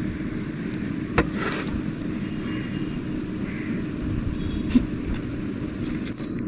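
Steady low background rumble with a faint hum, broken by two short soft clicks, about a second in and near five seconds.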